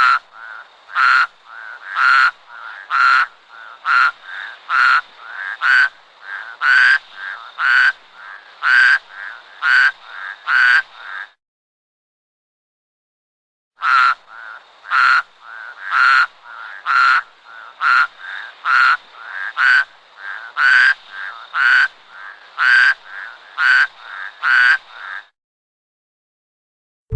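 A toad giving short, quacking calls about two a second, in two long bouts separated by a few seconds of silence.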